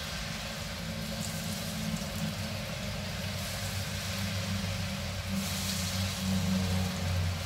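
Battered potato bhajias deep-frying in hot oil: a steady bubbling hiss, over a low steady hum.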